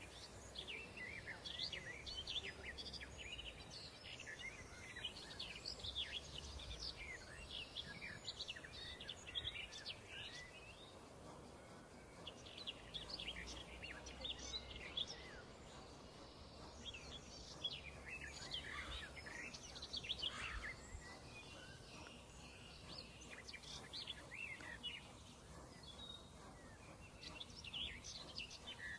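Small birds chirping in flurries of short, high calls, with a couple of quieter pauses, over a faint low rumble.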